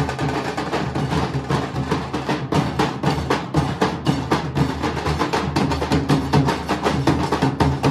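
Nashik dhol ensemble: several large barrel drums beaten with thick wooden sticks in a fast, driving rhythm, the strokes dense and unbroken.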